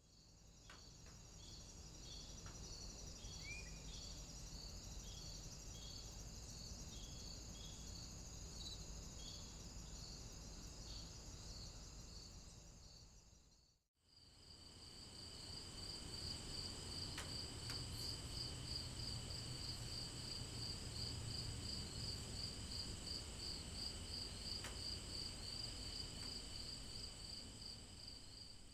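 Two nature ambience recordings of insects chirping, each fading in and out. The first has slower rhythmic chirps and one short bird call about three seconds in. The second, starting about halfway through, has faster, even pulsing chirps, about three a second, over a low rumble.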